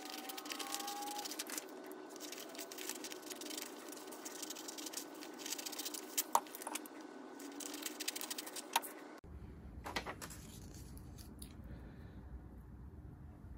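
Scissors cutting a paper template, with quick rustling snips and a few sharper clicks of the blades. After about nine seconds the cutting stops, leaving a low hum and the rustle and taps of paper being pressed down.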